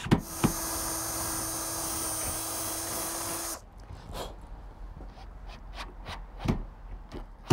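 Cordless drill/driver running at a steady speed for about three and a half seconds at a storm door's hinge rail, then stopping abruptly, followed by a few light knocks.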